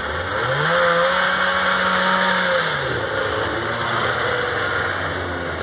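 Vintage snowmobile's two-stroke engine revving up as it pulls away, holding high for about two seconds, then easing off to a lower, steady run about three seconds in.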